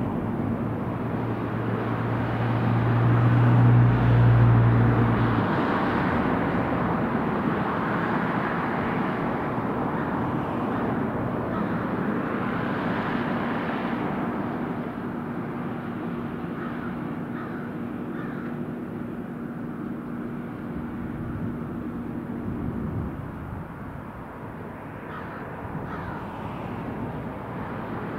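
Engine and propeller of a 1965 Cessna 182H Skylane at climb power just after takeoff: a six-cylinder Continental O-470 driving a constant-speed prop. It is loudest about four seconds in, with a strong low hum, then fades steadily as the plane climbs away.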